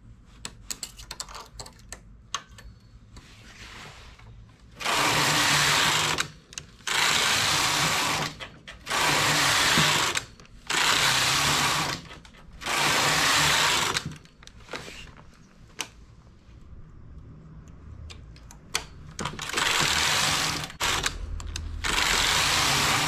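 Knitting-machine carriage, with the ribber carriage attached, being pushed back and forth across the needle beds to knit rows, each pass a loud sliding rattle of about a second and a half. Five passes come in quick succession, about one every two seconds, starting about five seconds in. A pause with scattered clicks follows, then two more passes near the end.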